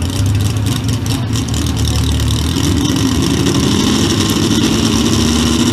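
Economy hotrod pulling tractor's engine running at the starting line. Its revs come up a little about halfway in and are then held steady.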